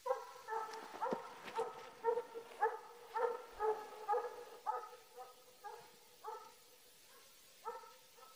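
Belarusian hound baying in a rapid series of short calls, about two a second, while running a hare on its scent; the calls grow sparser and fainter near the end.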